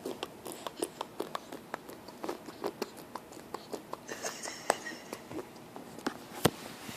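A baby making clicking and smacking mouth sounds: many short, irregular pops a few times a second, with a brief breathy hiss about four seconds in.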